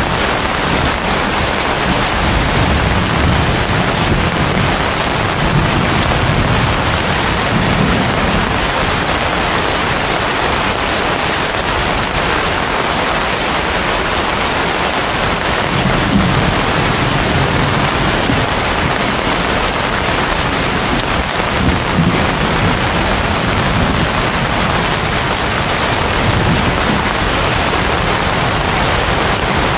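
Heavy rain falling steadily on broad banana leaves and palm fronds, a dense, even hiss. Low rumbles swell up several times underneath it.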